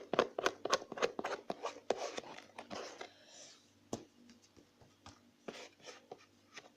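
Sticky homemade slime being squeezed, stretched and pulled off the hands, making quick wet clicks and crackles, busy for about the first three seconds and then thinning to scattered clicks.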